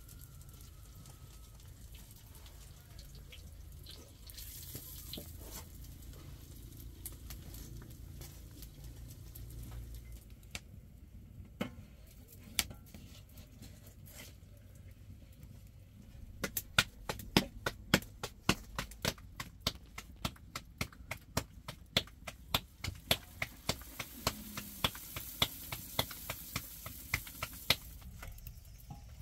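Bulani frying in hot oil in a large aluminium pot over a wood fire: a low steady sizzle, then from a little past halfway a run of sharp crackling pops, about three a second.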